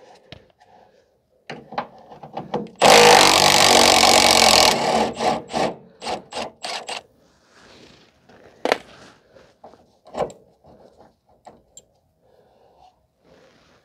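A power tool runs loudly for about two seconds, followed by a quick string of sharp metallic clicks and then scattered clinks of hand-tool work on the shock mounting hardware.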